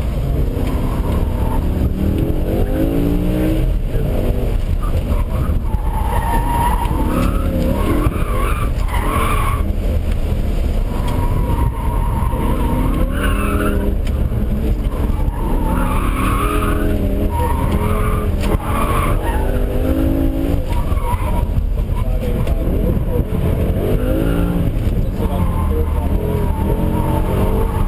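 2006 BMW M5's V10 engine, heard from inside the cabin, revving up and falling back over and over as the car is driven hard. The tires squeal repeatedly through the turns.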